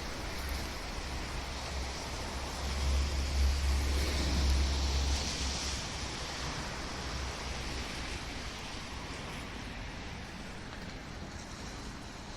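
A road vehicle passing by: its rumble and tyre hiss swell about three seconds in and die away by about six seconds, over steady outdoor background noise.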